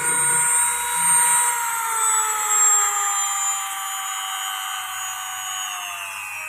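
Mini grinder engraving tool's motor whining at high speed, then falling slowly and steadily in pitch from about a second and a half in as it winds down.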